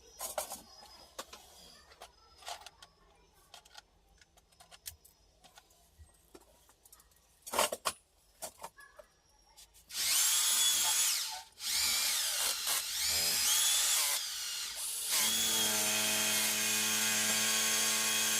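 Scattered clicks and knocks of tool work, then a small high-speed motor running in three bursts: the first two short and rising in pitch as it spins up, the last a steady run of about three seconds.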